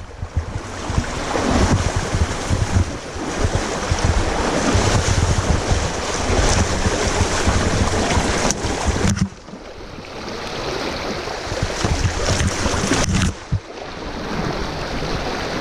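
Wind buffeting the microphone over the rush of moving river water, a loud, steady noise with a heavy low rumble that drops off sharply twice, about nine and thirteen seconds in.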